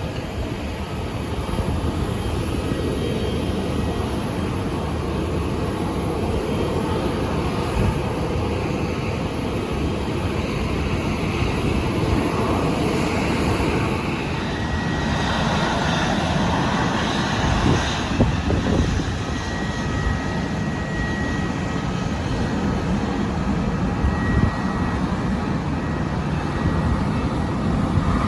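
Jet airliner engines running, a steady dense rush of engine noise. About halfway through, a faint high whine joins it for several seconds.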